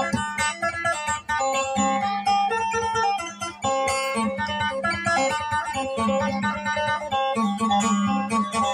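Acoustic guitar being plucked, a continuous run of picked notes and chords.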